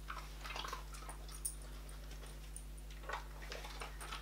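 Dog chewing and crunching small hard duck-meat treats, a scatter of short crunches and clicks, most of them in the first second and again from about three seconds in.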